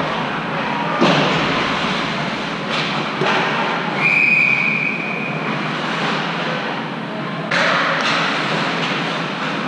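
Ice hockey game in play: scraping and knocking from skates and sticks on the ice, with a referee's whistle blown once about four seconds in and held for about a second.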